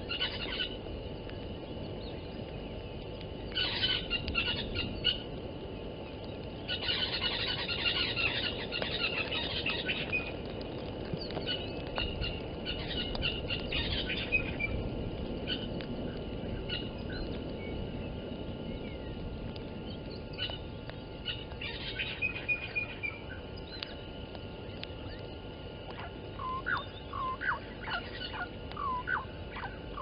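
Wild birds calling and chirping in scattered bursts over a steady low rush of wind on the microphone, with a lower series of short calls near the end.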